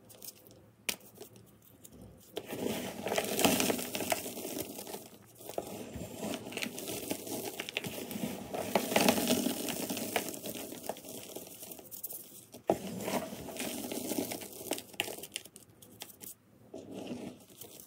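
Fingers pressing and raking through a heap of crushed, powdery gym chalk, giving a soft crunchy crackle. It comes and goes with the hand movements, loudest a few seconds in and again around the middle.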